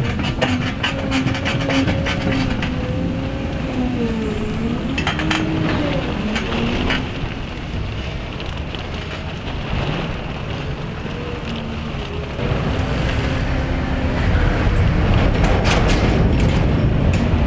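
Claas Torion 1511 wheel loader working a grass silage clamp, its engine note rising and falling with the load as it pushes and reverses. There are scattered clanks and knocks over it, and it runs louder in the last few seconds.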